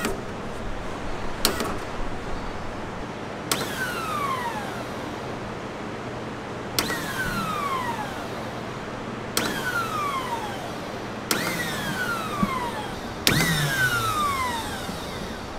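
A lowrider hydraulic pump motor is jumped at its solenoid five times. Each time it kicks on with a click, then a whine falls in pitch as the motor coasts down. The pump spins without lifting the car: the plastic shipping plugs were left in the pump, so it cannot pick up oil.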